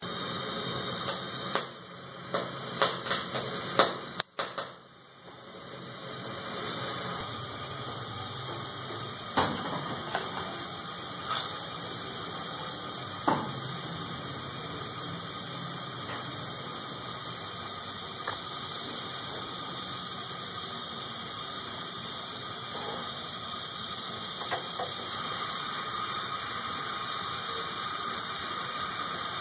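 Gas stove burner flame hissing steadily under an ear of corn as it roasts, with a cluster of sharp clicks in the first few seconds and a few single pops later.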